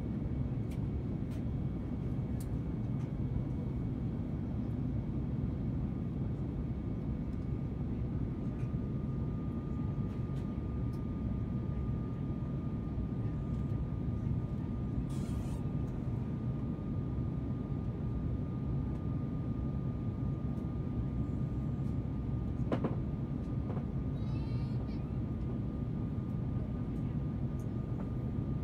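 Steady low rumble of cabin noise inside an Airbus A350 in flight: airflow and its Rolls-Royce Trent XWB engines heard from a window seat. A faint steady whine joins the rumble about a third of the way through, and there is a single sharp click near the end.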